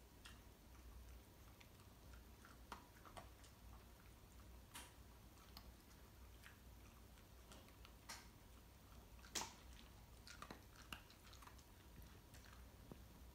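Shiba Inu eating dry kibble off the floor: faint, irregular crunches and clicks as it picks up and chews the pellets, the loudest about nine seconds in.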